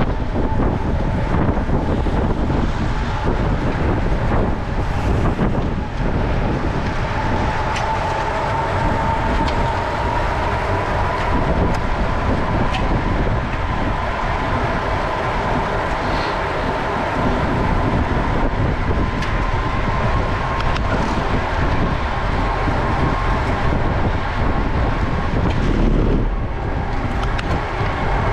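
Wind buffeting a camera microphone on a gravel bike ridden at race speed, a steady loud rush with low rumble. A faint steady whine comes in partway through and fades near the end.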